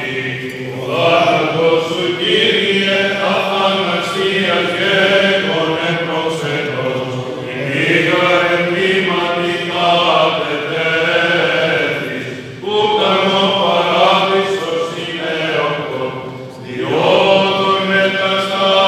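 Byzantine chant sung by male Greek Orthodox clergy over a steady held low drone (ison). The melody runs in long phrases, with two short breaks between them, at about twelve and sixteen and a half seconds in.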